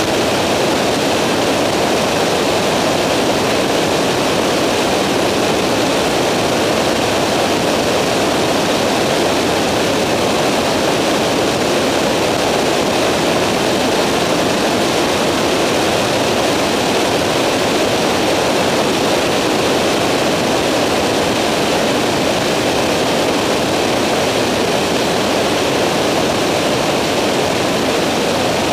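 Steady in-flight noise of a Skyranger microlight: the engine and propeller drone under a rush of airflow on the microphone, without change.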